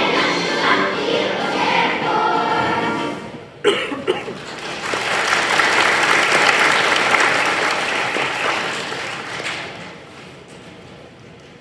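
A children's choir sings the last notes of a song, ending about three and a half seconds in with a sharp knock. Applause follows for about five seconds, then fades to quiet room noise.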